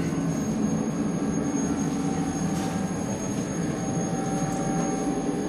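Train running steadily along the track: an even rolling rumble with a faint, steady high-pitched whine above it.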